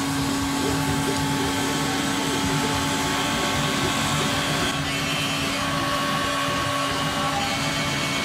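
Handheld electric heat gun blowing steadily with a constant motor hum, heating the heat-shrink butt connectors on a car stereo wiring harness.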